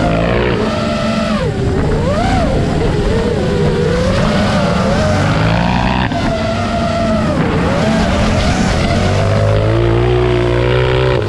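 Side-by-side UTV engine driven hard on a dirt track, its revs climbing and dropping again and again as the throttle is worked through turns.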